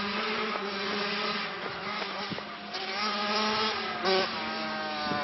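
Vehicle engine revving, its pitch climbing about halfway through and falling away near the end, with a short loud blast about four seconds in.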